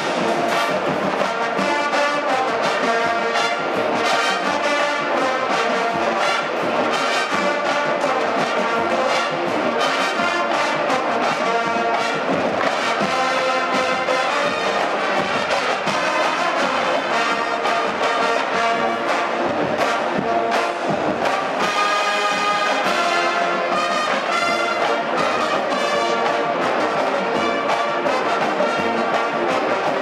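Marching band playing, with the brass carrying the tune over drums.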